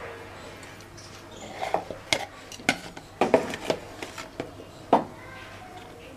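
Dishes and kitchen utensils clinking and knocking in a series of short, irregular strikes, the loudest about three seconds in and again near five seconds, over a low steady hum.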